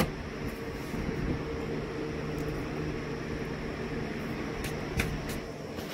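Steady background hum, with a sharp click at the start and another about five seconds in, and a few faint taps between them: small carburetor parts being handled and pulled apart.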